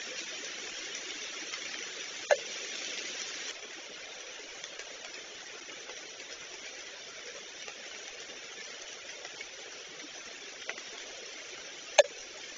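Steady outdoor hiss on a nest-camera microphone that drops in level suddenly about three and a half seconds in, with two short sharp sounds, one about two seconds in and one near the end.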